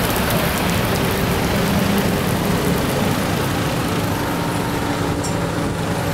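City street traffic: a steady hiss of passing vehicles with a low, steady engine hum underneath.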